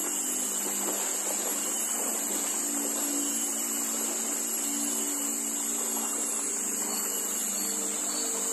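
Small boat engine running steadily, a constant hum under a steady high-pitched hiss.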